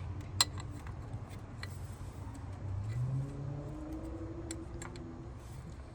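A sharp metallic click about half a second in, then a few light clicks and taps, as fuel injectors and their fittings are handled and pushed into a rotary engine's intake.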